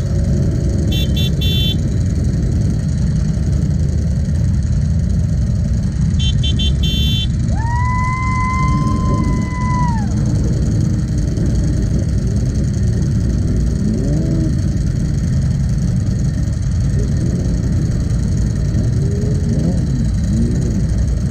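Low, steady rumble of a group of motorcycle engines idling close by, with a few short revs in the second half. A vehicle horn sounds once for about two seconds near the middle.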